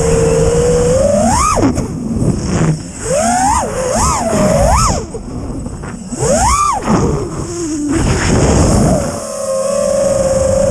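FPV quadcopter's brushless motors whining at a steady pitch, with quick throttle punches where the whine shoots up and drops back: once about a second and a half in, three in quick succession from about three and a half to five seconds, and once more near six and a half seconds. A rough rushing noise runs underneath.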